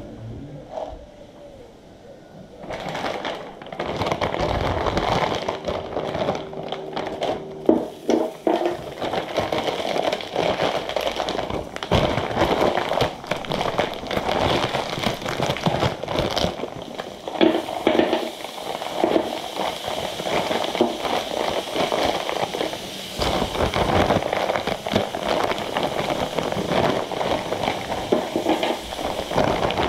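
Food sizzling and crackling on a Tefal Maxi Plancha electric griddle, a dense crackle that starts about two and a half seconds in and keeps going.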